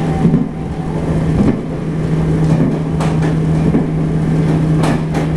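Local passenger train running along the track, heard from inside the car: a steady hum over the rumble of wheels on the rails, with a few sharp clicks about three seconds in and near the end.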